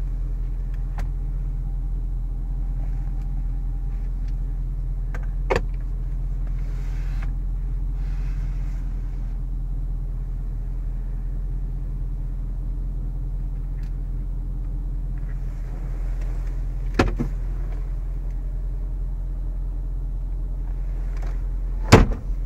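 Steady low hum inside a parked car's cabin, with sharp clicks from interior trim being handled: one about five seconds in, another around seventeen seconds, and a louder double knock near the end.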